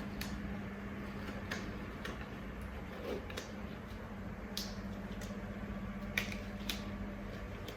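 Faint handling noises, a few scattered sharp clicks and rustles, over a steady low hum.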